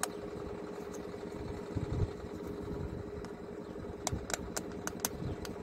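A steady engine hum, with about five quick, light clicks a little after four seconds in as a plastic electrical connector is handled.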